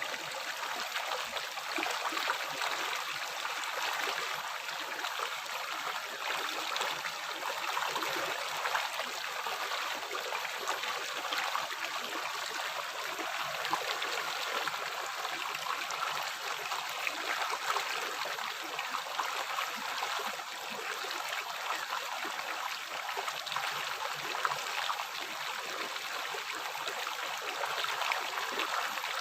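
River water flowing steadily over rocks, a continuous rushing with fine splashing and gurgling.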